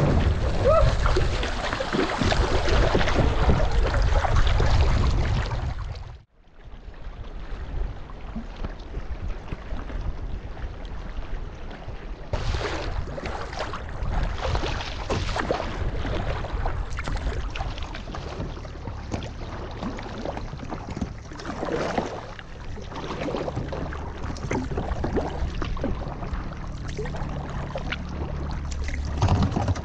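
Kayak paddling on open water: water splashing and lapping against the hull, with paddle blades dipping in every second or so. A louder stretch of splashing in the first six seconds cuts off abruptly, and the paddling comes back quieter.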